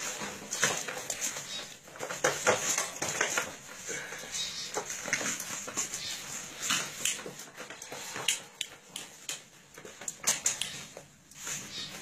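Chihuahua puppies play-fighting, with many short irregular scuffling and scratching noises and a few small dog whimpers.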